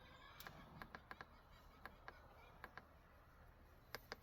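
Faint, irregular clicks of a handheld diagnostic scan tool's buttons being pressed to scroll through live data, with a quick run of three clicks near the end.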